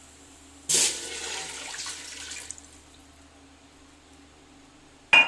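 Water poured into a hot pot of sautéed garlic and onion: a sudden rushing splash and hiss about a second in that dies away over the next couple of seconds. A sharp clink comes near the end.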